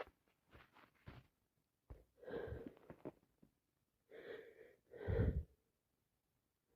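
A congested woman with a head cold, sniffing and hitching her breath as a sneeze builds: a few quick wet sniffs, then three catching gasps, the last the loudest.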